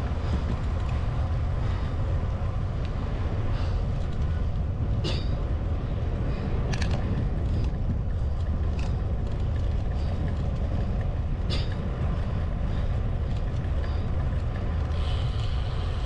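Steady wind and road rumble on the microphone of a road bicycle being ridden, with a few short sharp clicks about five, seven and eleven seconds in.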